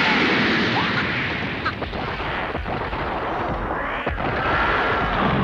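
Animated battle sound effects: a loud, continuous blast rumble as a surge of ice engulfs the fighters.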